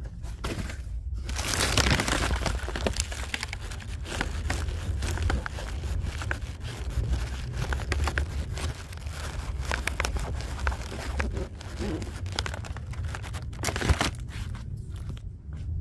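Grocery bags crinkling and rustling steadily as they are carried, with a sharp knock near the end.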